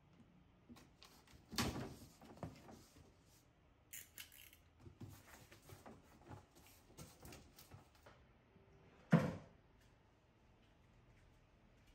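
Cardboard box being opened and handled: flaps scraping and rustling, with scattered small knocks and one sharp knock a little after nine seconds in, the loudest sound.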